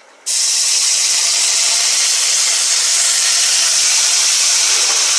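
Water poured into a hot skillet of rice toasted in butter, hissing and sizzling as it flashes to steam. It starts suddenly about a quarter second in and stays loud and steady.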